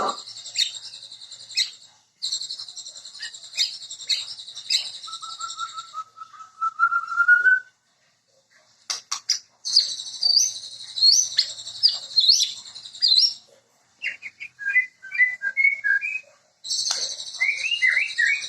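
White-rumped shama (murai batu) singing in bursts of fast, varied whistles and chirps, with a rising trill near the middle and short pauses between phrases.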